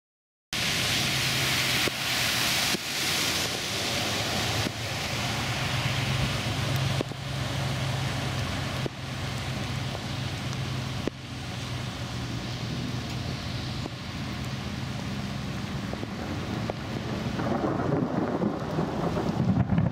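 Heavy rain pouring onto a flooded street, a steady hiss over a low hum. Near the end a pickup truck pushes through the floodwater, and the rushing and splashing of water swell louder.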